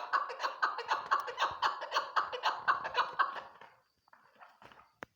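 Chukar partridge calling: a rapid run of chuck-chuck notes, about four a second, that fades out after about three and a half seconds, followed by a few softer notes and a single click near the end.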